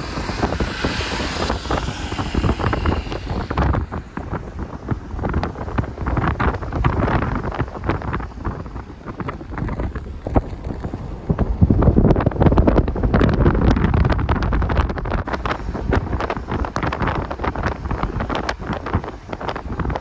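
Wind buffeting the microphone over the rumble of a car moving along the road, with gusts growing louder about twelve seconds in.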